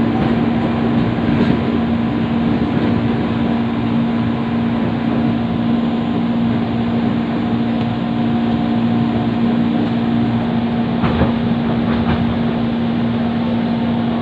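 Interior of a Jabodetabek KRL Commuter Line electric train car running between stations: a steady rolling rumble with a constant low hum. Two sharp knocks come near the end.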